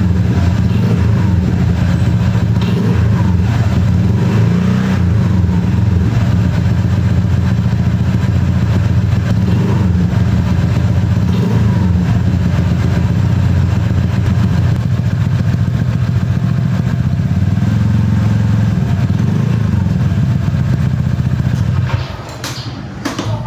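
Honda PCX 150 scooter's single-cylinder four-stroke engine running through an aftermarket Akrapovic racing exhaust fitted with a dB killer, giving a bassy but mellow note. A few gentle throttle blips rise and fall over the steady running, and the engine sound cuts off near the end.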